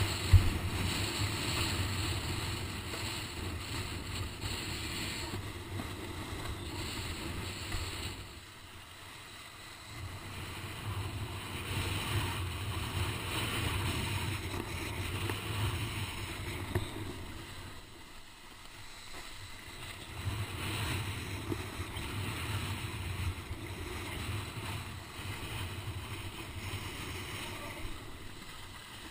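Wind buffeting the camera microphone and water rushing past a planing windsurf board in strong wind, swelling and easing by turns and dropping away twice for a couple of seconds. A single sharp knock just after the start.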